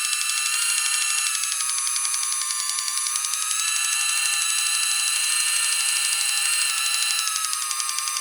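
Battery-powered automatic can opener running on a can: a steady high-pitched motor whir with a fast ratcheting rattle from its gears as it cuts its way around the lid.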